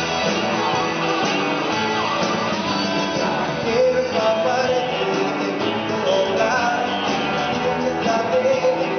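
A rock band playing live through a stage PA: electric guitars over a drum kit, with a melodic line, sung or played, coming in about four seconds in.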